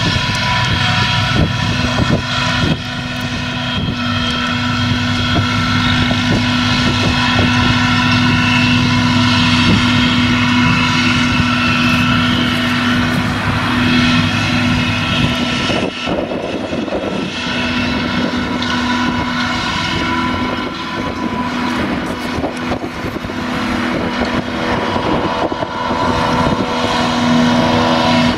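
Claas Jaguar self-propelled forage harvester chopping grass under load and blowing it through its spout into a trailer: a steady, loud engine and machine drone with several steady high whining tones over it.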